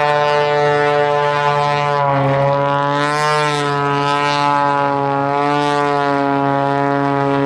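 Propeller-driven aerobatic aircraft in formation flying a low pass, their piston engines and propellers droning loudly and steadily. The pitch wavers and bends as the planes pass, most plainly two to three seconds in.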